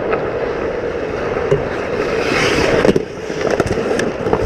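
Ice skate blades scraping and carving on rink ice close to the goal, swelling into a louder hiss of scraping about two seconds in, over a steady hum. Several sharp clacks of hockey sticks and puck come in the last second or so.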